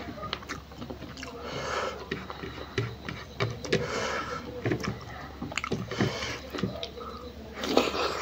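Close-up hand-eating sounds: fingers mixing and scooping rice and smoked pork on a plate with wet, sticky clicks, and mouth sounds of eating. A louder wet patch comes near the end as a handful goes into the mouth.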